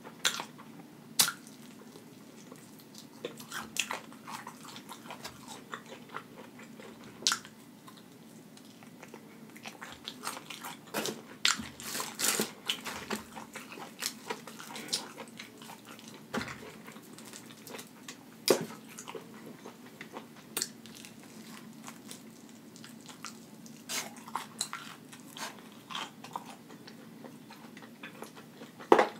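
A person biting into and chewing breaded fried chicken wings, with irregular crisp crunches. There is a run of louder crunches about twelve seconds in.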